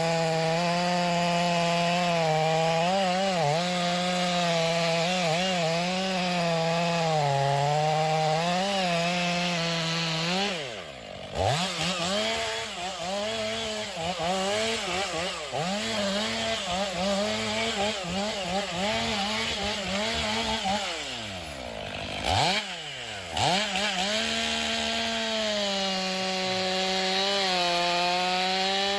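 Petrol chainsaw engine running at high revs while cutting through wood, its pitch wavering and sagging as the chain works under load. Twice, near the middle and again about two-thirds through, the engine drops off and revs back up.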